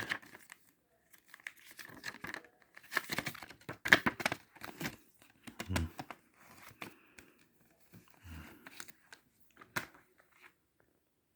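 Plastic shrink-wrap being torn and crinkled off a CD case, in irregular bursts with sharp clicks.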